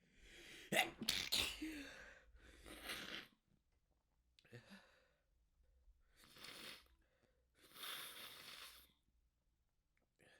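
A person in a sneezing fit, induced with chhinkni sneezing powder and by hand: one loud, sudden sneeze about a second in, then three more noisy bursts of sneezing and breath spaced a few seconds apart.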